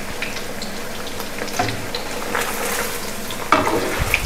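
Paneer cubes deep-frying in hot oil in a wok: a steady sizzle with scattered crackles. A metal ladle stirs the pieces, with a louder clatter against the wok about three and a half seconds in.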